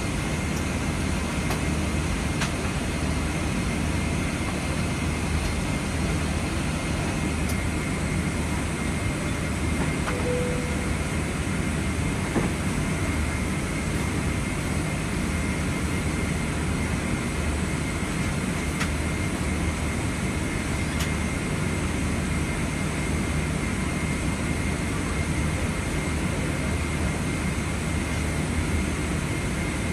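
Steady cabin noise inside a Boeing 777-300ER being pushed back before engine start: a low rumble under the rush of the cabin air-conditioning, with a thin steady whine. A brief faint tone sounds about ten seconds in.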